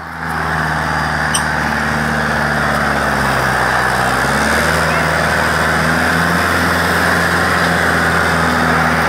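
Sonalika tractor's diesel engine running hard under heavy load, pulling a disc harrow through dry soil. The engine note sags for about a second some three seconds in, then picks back up.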